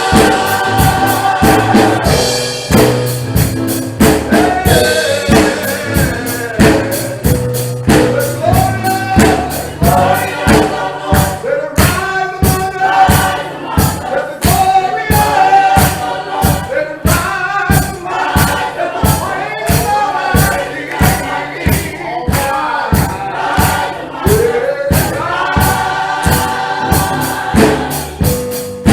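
Gospel choir singing over a steady, fast percussion beat, about two or three strokes a second.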